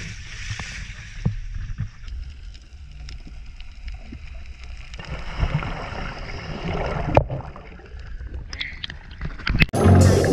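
Water splashing and bubbling as scuba divers roll backward off a boat into the sea. Music comes in loudly near the end.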